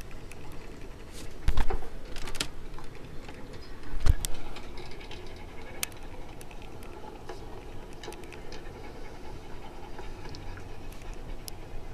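Dogs panting, played back through computer speakers, with a couple of low thumps about one and a half and four seconds in.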